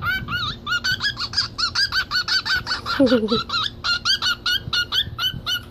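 Pet bird chirping rapidly and steadily, about four or five short, arched chirps a second, with a brief lower, falling call about three seconds in.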